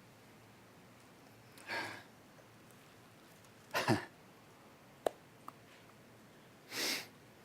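Three short, breathy exhales or sniffs in a small quiet room, with a single sharp click about five seconds in.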